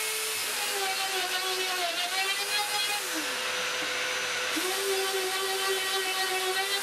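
Makita RP0910 plunge router running at speed while milling loose-tenon slots in beech, with a vacuum dust extractor drawing through the hose alongside. The motor's pitch sags about three seconds in and picks up again about a second and a half later.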